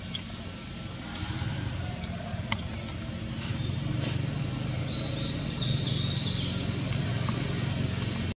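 Outdoor ambience: a steady low engine-like hum, like a vehicle running nearby, grows louder from about a second in. A bird chirps a quick run of high notes around the middle, and there are a few faint clicks.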